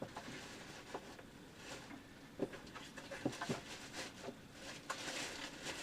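A plastic bag of meal-kit ingredients being handled and set down: crinkling rustle with scattered light knocks of packages, the rustling busier near the end.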